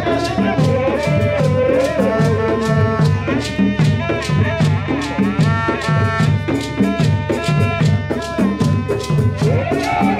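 Live traditional drum ensemble: hand drums beating a steady, fast rhythm with shakers rattling on every beat, and a horn playing held notes above.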